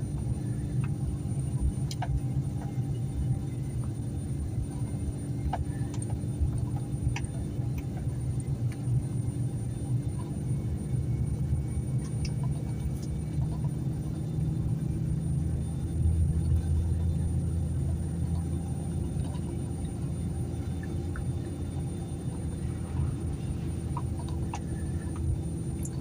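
A vehicle driving along: a steady low rumble of engine and road noise with a few small clicks and rattles, the rumble swelling about two-thirds of the way through.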